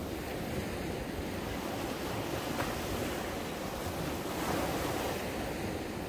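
Small waves breaking and foamy surf washing up a sandy beach: a steady rushing wash that swells a little about four seconds in.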